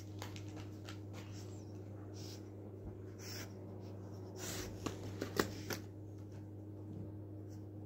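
Pug moving about on a quilted blanket right against the microphone: soft rustling and scratching, with a few short sharp clicks and taps about five seconds in, over a steady low hum.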